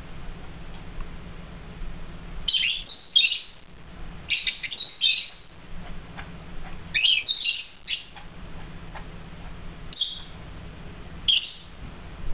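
A pair of lovebirds chirping in several short clusters of sharp, high calls with pauses between. A faint low steady hum runs underneath.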